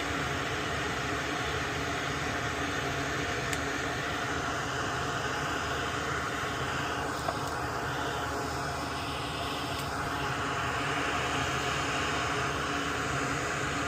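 Steady whir and hiss of a running fan or blower, unchanging throughout, with a single small click about seven seconds in.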